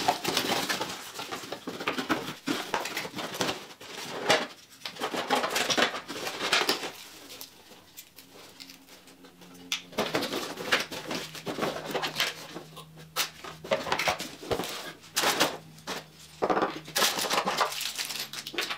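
Cardboard boxes being opened and packaging unpacked by hand: irregular rustling and scraping of cardboard and plastic wrap, with light knocks of parts set down on a wooden table.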